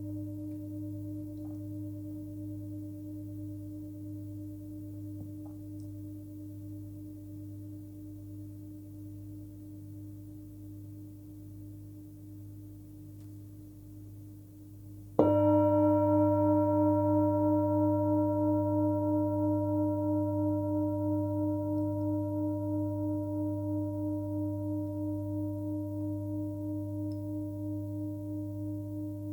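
A 27 cm Full Moon singing bowl with a deep fundamental near 101 Hz (between G and G#) rings and slowly fades. About halfway through it is struck once and rings out again, loud and long, with several overtones and a slow pulsing waver in the tone.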